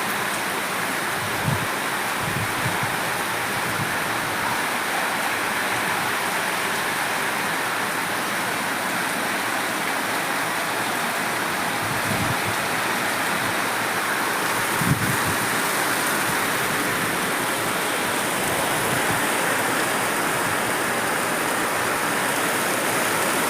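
Heavy rain pouring down steadily, with a few soft low thumps.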